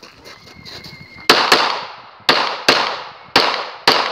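Shot timer's start beep, a faint steady tone about a second long, then six pistol shots fired in three quick pairs, each shot followed by a short echo off the range.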